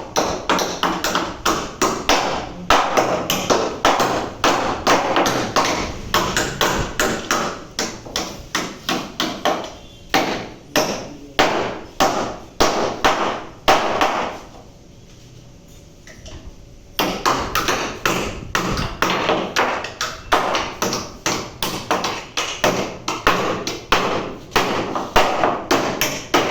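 Hammer striking again and again at a quick, even pace of about two to three blows a second. The blows stop for about three seconds midway, then resume.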